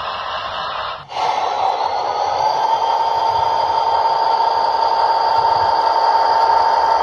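Model diesel locomotive in Southern Pacific 3197 livery running along its track: a steady rolling hiss of small wheels on the rails, with a steady high whine that grows louder as the locomotive nears. The sound dips briefly about a second in.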